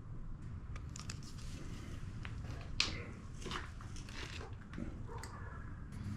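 Small clicks, taps and wet scraping as greased bicycle bottom bracket parts are handled and fitted, with one sharper click about three seconds in.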